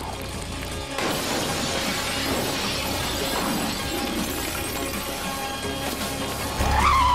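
A small car crashing through a plate-glass window: glass shattering and showering down for several seconds, over film music. Near the end a louder low rumble and a tyre squeal start.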